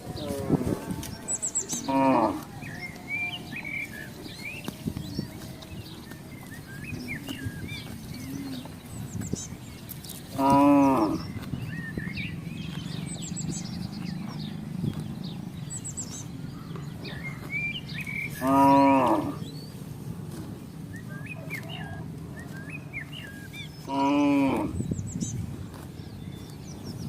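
Village cattle mooing four times, spread out, each call lasting about a second, with small birds chirping in between.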